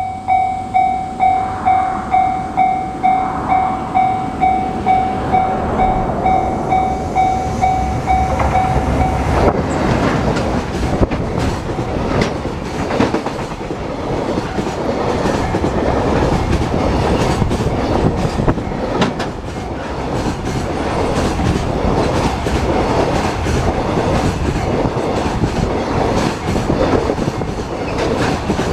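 Japanese level-crossing warning bell ringing in a steady ding-ding, about two strokes a second. About nine seconds in the bell stops and a freight train hauled by an EF210 electric locomotive passes close by, its wagon wheels clattering rhythmically over the rail joints.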